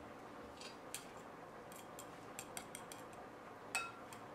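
Metal fork whisking egg, heavy cream and vanilla in a ceramic bowl, clinking against the bowl in a run of light, irregular clicks, with one louder ringing clink near the end.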